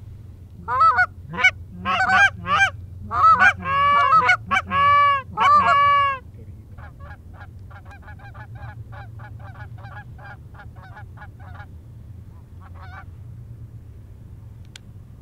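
Canada goose honks and clucks: a run of loud, close honks for the first six seconds, then a quicker series of fainter short clucks, about three a second, with one last call near the end.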